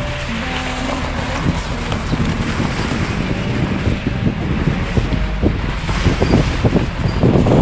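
Wind buffeting the microphone over the rush of the sea, the gusts coming thicker and harder in the second half.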